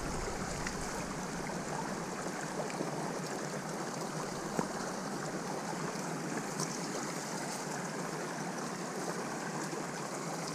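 Steady rush of a flowing stream or river, with one short click about halfway through.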